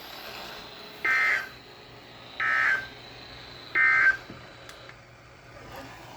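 NOAA Weather Radio's SAME end-of-message data burst, sent three times: three short bursts of two-tone digital data about a second and a half apart, with faint radio hiss between. It marks the end of the severe thunderstorm warning broadcast.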